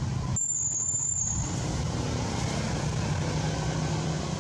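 Low, steady rumble of a road vehicle's engine, with a brief high squeal about half a second in.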